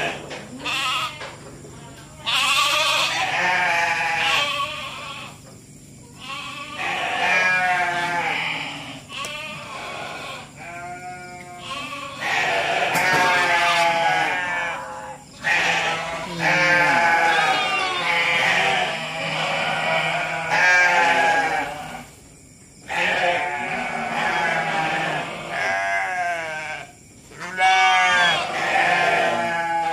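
A flock of sheep bleating again and again, many calls overlapping, each lasting a second or two with a quavering pitch.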